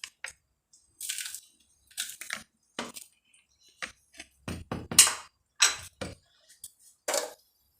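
Salt being added by hand to black olives: a string of short, irregular gritty rustles and crackles.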